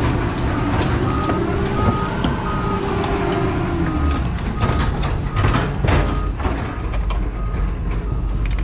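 Vehicle reversing alarm beeping in a steady on-off pattern, about two beeps a second, over a heavy engine running. A run of sharp metal clanks comes about halfway through.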